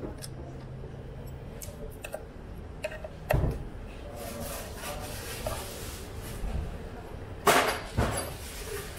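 Light clicks and knocks of metal parts and tools being handled, with a louder knock about three seconds in and two sharper knocks close together near the end.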